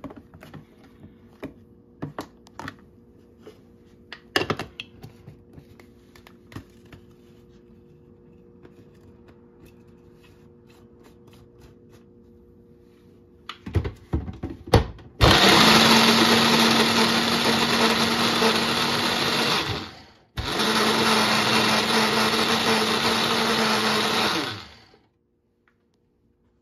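Electric kitchen blender grinding mango sour: it runs steadily for about four seconds, stops briefly, then runs for another four seconds. Before it starts, there are scattered clicks and knocks from handling the blender jar and lid.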